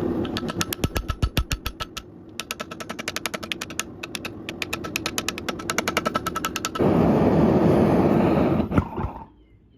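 Fast, evenly spaced hammer blows on hot metal, about seven a second, pausing briefly once. This is typical of a power hammer drawing out the stock. Then comes a loud steady rushing noise for about two seconds, which ends with a single knock.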